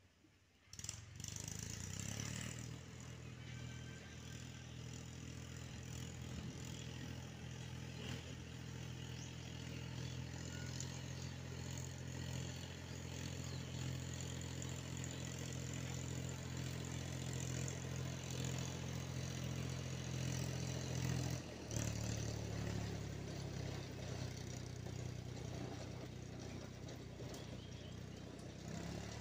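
Diesel tractor engine running steadily under load while pulling a rotavator through dry soil. The sound comes in suddenly about a second in, with a brief break about three-quarters of the way through.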